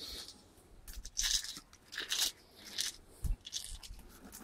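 Dry oven-baked eggshells crunching in several short bursts as they are crumbled by hand.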